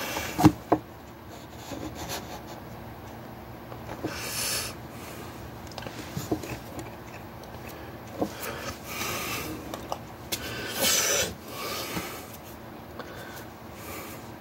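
Hands moving and rubbing against clothing close to the microphone, with two sharp clicks just after the start and several short hissy puffs of breath.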